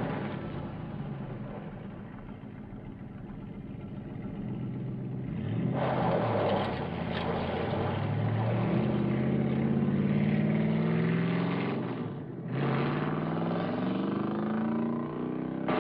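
1970 Dodge Challenger's V8 accelerating hard across dirt. The engine note fades over the first few seconds, then comes back louder about six seconds in and climbs in pitch as it revs up. Near twelve seconds it drops briefly, as at a gear change, then climbs again.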